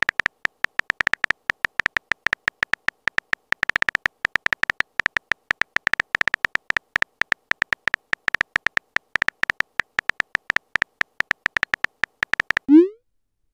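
Rapid, irregular keyboard-tap clicks of a texting-app typing sound effect as a message is typed out, each tap with a short high beep. The tapping stops just before the end and is followed by a single quick rising pop.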